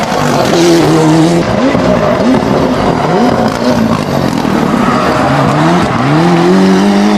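Toyota Celica GT-Four rally car's turbocharged four-cylinder engine revving hard on a tarmac stage. Its pitch rises and falls in several quick swoops as the throttle is blipped and lifted through the corners, then climbs steadily near the end as the car accelerates away.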